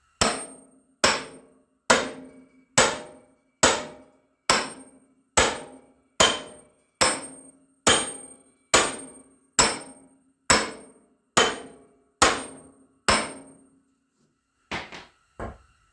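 A hammer drives steel splitting wedges into the tractor's split joint to force the halves apart. It lands sixteen steady blows a little under one a second, each ringing briefly like metal, then two lighter taps near the end.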